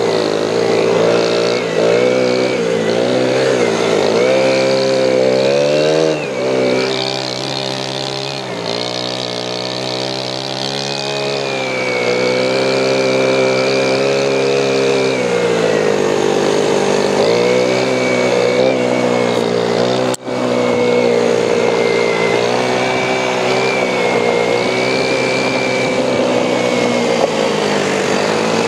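ATV engine running as it is ridden, its pitch rising and falling with the throttle. The sound drops out briefly about twenty seconds in.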